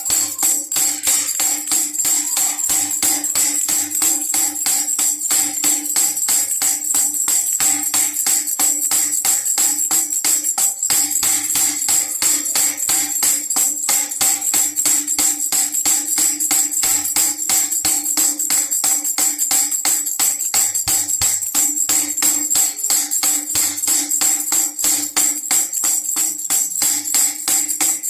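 Baby rattle with jingle bells shaken steadily: rapid, continuous jingling with a faint steady tone underneath.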